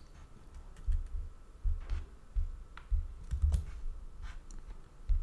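A handful of separate computer keyboard keystrokes and clicks, spaced roughly half a second to a second apart, each with a soft low thump.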